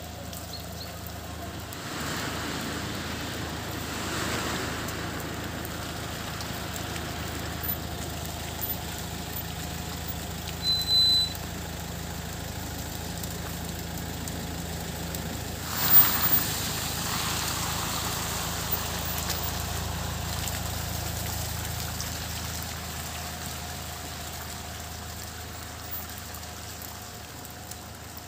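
Karsan Jest+ minibus engine running as the minibus drives slowly past on a slushy, snowy road, with tyre noise on the wet surface. A short sharp hiss about sixteen seconds in, as the minibus passes close, and the sound fades near the end as it drives away.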